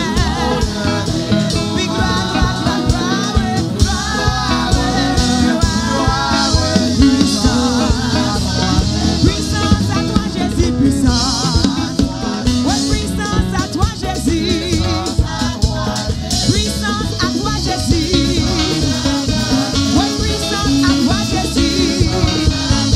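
Live gospel worship song: a woman singing into a microphone, her voice wavering in pitch, over a band with a steady beat.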